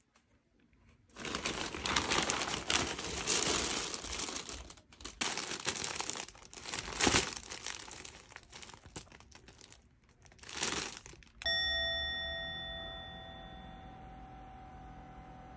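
Clear plastic clothing bags crinkling and tearing as they are handled and ripped open, in uneven bursts. About three-quarters of the way through, a single bright ding rings out and slowly fades.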